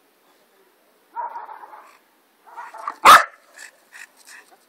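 Belgian Malinois puppy vocalising, with two quieter sounds and then a single loud, sharp bark about three seconds in.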